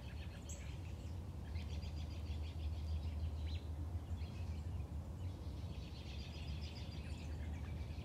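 Birds twittering in intermittent runs of quick high chirps over a steady low hum.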